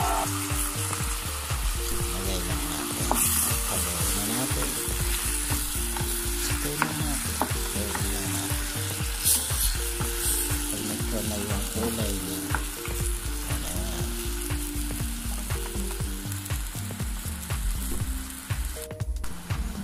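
Marinated chicken pieces sizzling in hot oil with onion and garlic in a stainless steel pot, stirred with a wooden spatula that knocks against the pot now and then.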